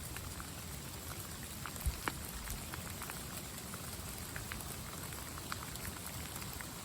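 Rain falling, individual drops ticking irregularly close by over a steady hiss, with a couple of louder drops about two seconds in.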